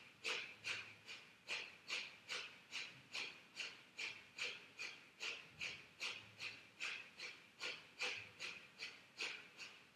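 Breath of fire: a person's rapid, forceful exhalations through the nose, about three a second, each a short sharp puff followed by a passive inhale, kept up in an even rhythm.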